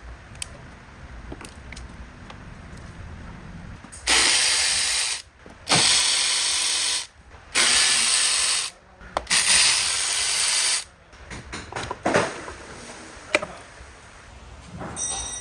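Power ratchet spinning out the valve cover bolts on an LS V8 in four runs of about a second each, with small metal clinks of tools and bolts around them.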